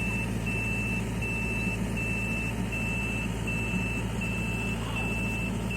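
A heavy machine's reversing alarm beeps steadily, about four beeps every three seconds, over the continuous rumble of its engine.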